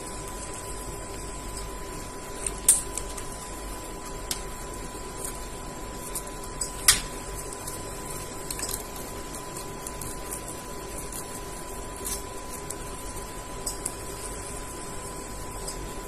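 Blue ringneck parakeet biting and tearing a paper tissue packet with its beak: irregular crinkling clicks of paper, two sharper ones about three and seven seconds in, over a steady background hum with a constant tone.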